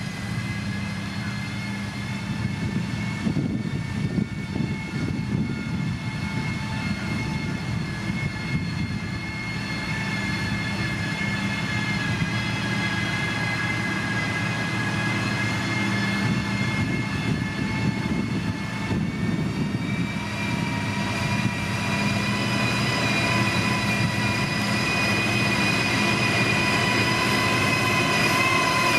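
Heavy diesel road-construction machine running steadily, a low engine drone under a high whine that creeps slightly up in pitch and grows louder toward the end.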